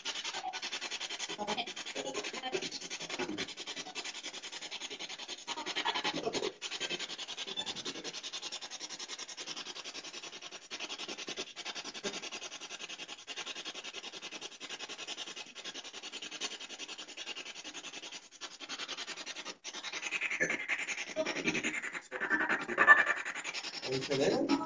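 Steady hiss of static with a rough, chopped texture, briefly dropping out a few times and growing busier and louder in the last few seconds.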